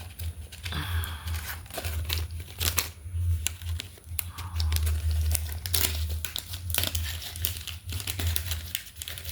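Packaging crinkling and rustling in irregular crackles as it is handled and opened to get at a small freebie.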